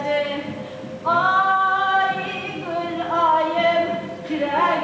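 Unaccompanied female singing in long, held notes, a new phrase starting every second or two.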